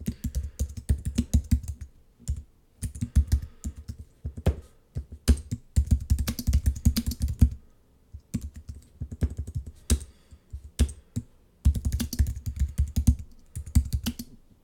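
Typing on a computer keyboard: quick runs of key clicks in bursts, with brief pauses between them.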